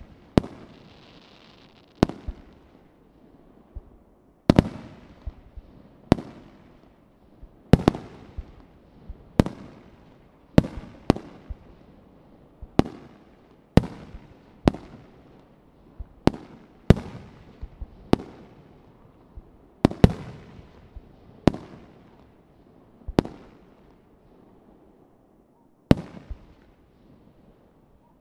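Aerial firework shells bursting in a fast series, a sharp bang about every second, each one trailing off. The bangs thin out near the end.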